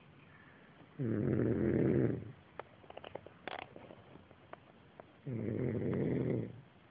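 A sleeping man snoring: two loud snores, each just over a second long, about four seconds apart.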